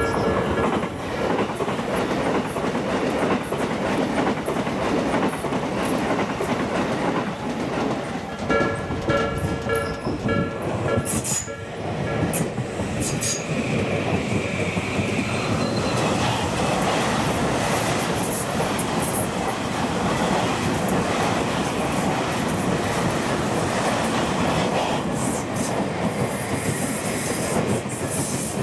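Electric commuter trains on the Tobu Skytree Line running through a level crossing, with the steady rumble and clickety-clack of the wheels. The crossing's warning bell rings at the very start and again for a few seconds partway through.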